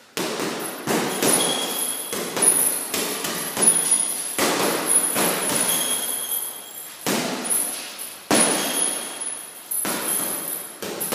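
Boxing gloves punching a hanging heavy bag in combinations: a run of sharp thuds, about two to three a second, in groups with short breaks.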